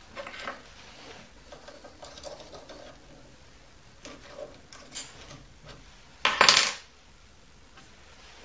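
Light metallic clinking and rattling as tools and steel parts are handled around a mini lathe's milling vise, with one louder clatter about half a second long a little after six seconds in.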